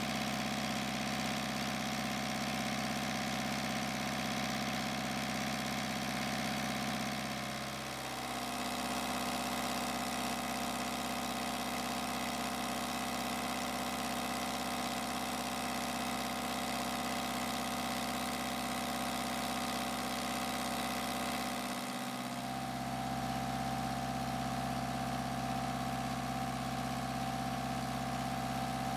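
Kubota V2203 four-cylinder diesel engine running steadily at idle, its tone shifting slightly about 8 and 22 seconds in.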